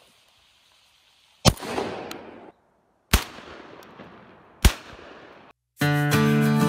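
Three shotgun shots about a second and a half apart, each trailing off in echo. Acoustic guitar music starts near the end.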